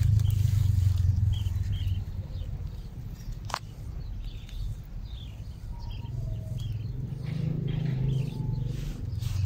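Outdoor ambience: a low rumble, loudest at the start and again near the end, with faint short bird chirps scattered through and a single sharp click about three and a half seconds in.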